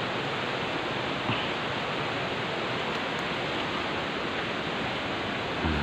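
Steady, even rushing noise with no distinct events. Near the end there is a brief low sound.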